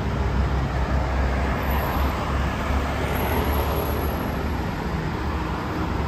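Road traffic on a city street: cars and a van driving past, making a steady rumble of engines and tyres.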